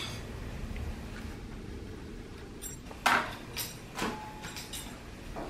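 A knife clicking against a plate as banana is sliced onto a pancake: a few light clicks past the middle, over a low steady background hum.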